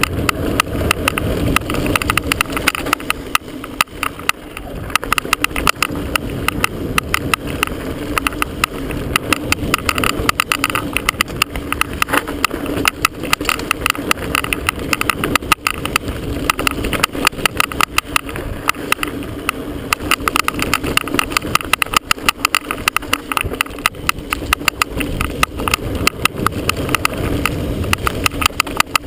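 Chest-mounted camera rattling and banging against its mount in rapid, irregular clicks as a mountain bike runs down a bumpy dirt singletrack, over a steady rush of wind and tyre noise.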